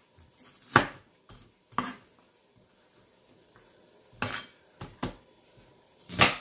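A kitchen knife chopping an onion on a plastic cutting board: about six sharp knocks of the blade on the board, spaced unevenly, with a pause of about two seconds in the middle.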